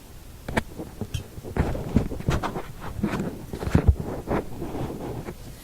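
Hands handling small parts and wires on a workbench: an irregular run of light clicks, taps and rustles starting about half a second in, with a couple of louder knocks near the four-second mark, stopping shortly before the end.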